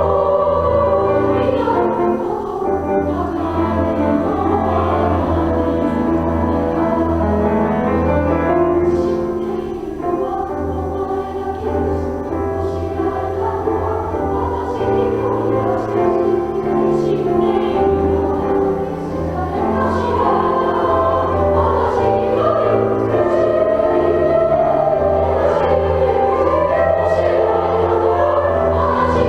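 A school class choir singing a song together in sustained, full chorus.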